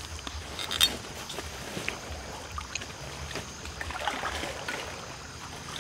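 Stream running steadily, with a few short scrapes of a large knife on the crisp, charred skin of a spit-roasted whole chicken; the sharpest comes about a second in, and more follow around four seconds in.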